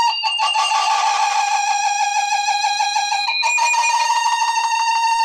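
Asus laptop giving out a loud, buzzy scream: one high, steady tone with a fast rasp. It sags slowly in pitch for about three seconds, then jumps back up.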